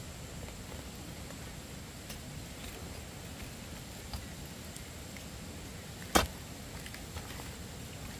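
One sharp knock about six seconds in, with a couple of faint taps, over steady background noise.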